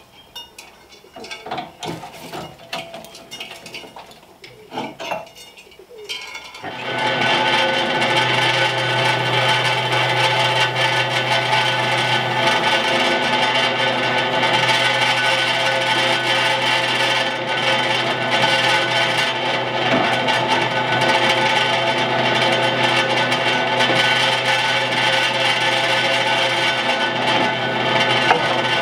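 Knocks and clicks of steel tubing being set up and clamped on a drill press table. About seven seconds in, the drill press motor starts and runs with a steady whine while the bit drills into rectangular steel tube.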